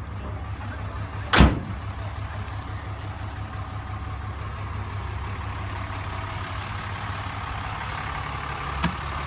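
A pickup tailgate is slammed shut once, sharply, about a second and a half in. It sounds over the steady low idle of a 6.7 L Cummins turbo-diesel. A light click of a door latch comes near the end.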